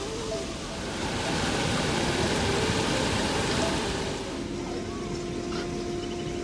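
Steady rush of heavy rain, swelling louder for a few seconds midway and then easing, with a faint steady hum underneath.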